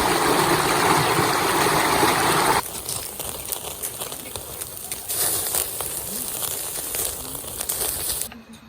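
Rushing mountain stream water, loud and even, for the first two and a half seconds, then an abrupt cut to a quieter outdoor scene with scattered small clicks and crackles.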